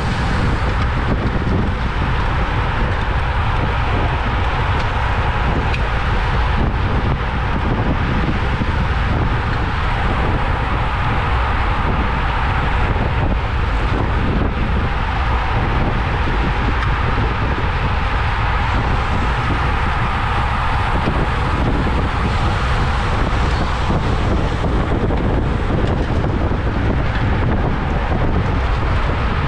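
Steady wind rushing over the microphone of a camera carried by a racing cyclist at speed, buffeting hardest in the low end, with road and tyre noise underneath.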